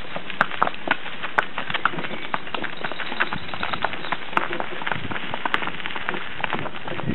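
Hooves of a pair of carriage ponies clip-clopping in an uneven patter of several strikes a second, over a steady rolling noise from the carriage.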